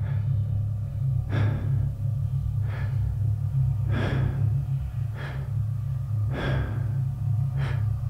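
Heavy, rhythmic breathing, a breath about every 1.2 seconds, alternating stronger and weaker like inhale and exhale, over a low steady drone.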